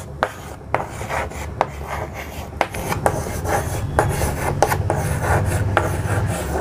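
Chalk writing on a chalkboard: scratchy strokes with repeated sharp taps as the chalk meets the board.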